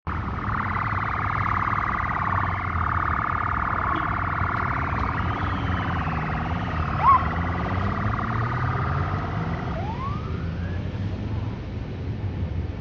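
Street traffic rumbling, with motorcycles among it, under a steady high-pitched wavering drone that stops about ten seconds in. A short, sharp chirp about seven seconds in is the loudest moment, and a rising whistle-like glide follows near ten seconds.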